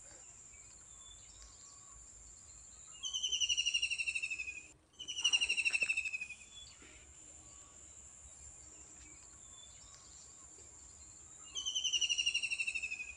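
A bird calls three times, each call a rapid falling trill about a second and a half long, over a steady high insect drone.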